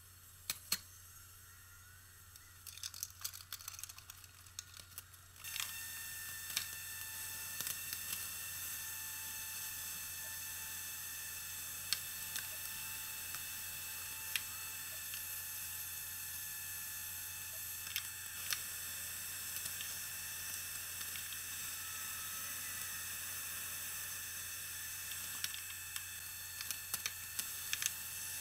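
Scattered clicks and knocks of hand work on copper pipe, then about five seconds in the steady hiss of a handheld gas torch flame heating copper pipe fittings for soldering, with occasional clicks over it.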